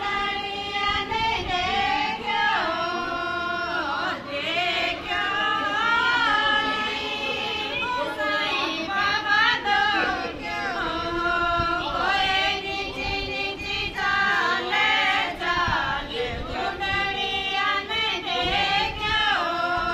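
A group of women singing a devotional folk song (bhajan) together.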